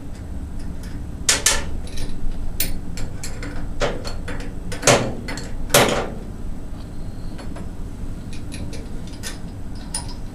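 Scattered metal clicks and clanks of a wrench working the two bolts that hold a hydraulic pump to its bell housing, the loudest knocks about a second and a half in and again around four to six seconds in, over a steady low background hum.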